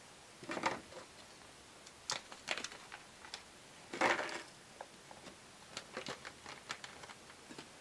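Small clear plastic parts bags crinkling as they are handled, with light clicks and rattles of small hardware such as screws dropped into a small cardboard box. The sounds come in scattered short bursts, the loudest about four seconds in.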